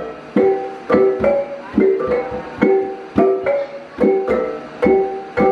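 Dayak gong-chime ensemble (engkerumong): a row of small bossed gongs in a wooden frame struck with wooden sticks in a quick, repeating pattern, two to three strokes a second, each stroke ringing on. Larger hanging gongs are struck along with it.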